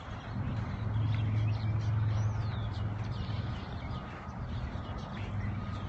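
Birds chirping and calling, one with a falling call about two seconds in, over a steady low hum.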